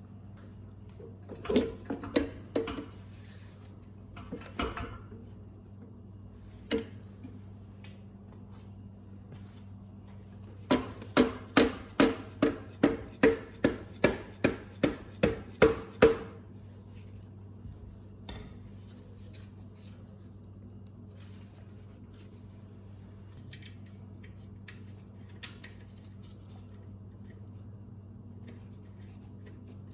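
Metal tools clinking on engine parts: a few scattered clinks, then a run of about a dozen evenly spaced metallic clicks, roughly two a second, over a low steady hum.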